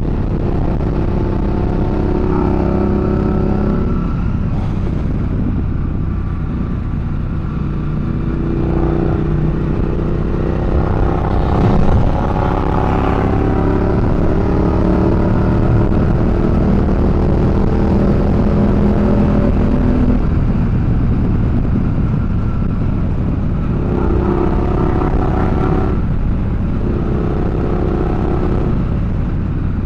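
Motorcycle engine under way, its pitch rising and dropping several times as the rider accelerates and shifts gears, over a steady low rumble of wind and road noise on the external microphone.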